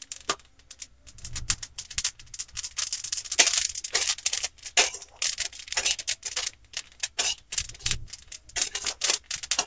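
Flax seeds crackling and popping in irregular rapid clicks as they dry-roast in a steel kadhai without oil, with a steel spatula stirring and scraping them through the pan. The popping is the sign that the seeds are roasted and nearly done.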